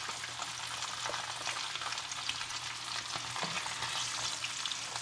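Breaded bream and bass pieces frying in very hot oil: a steady sizzle with many small crackles.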